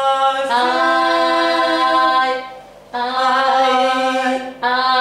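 Unaccompanied solo voice singing long held notes: a lower note steps up to a higher one about half a second in and holds, then after a short break near the middle another long steady note is held.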